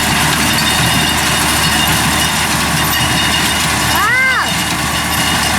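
An engine idling steadily, a low even drone. About four seconds in comes one short high call that rises and then falls.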